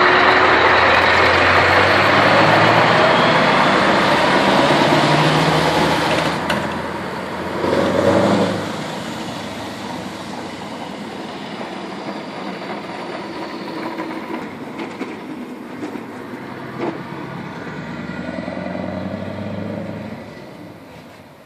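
Scania R500 truck's V8 diesel engine running loudly close by, with a brief surge about eight seconds in, then fading as the truck moves away.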